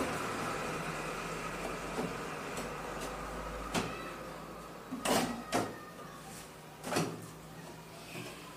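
Plastic rear cabinet of a CRT television being worked loose and pulled off: a few knocks and scrapes of plastic, the loudest a cluster about five seconds in and another at seven.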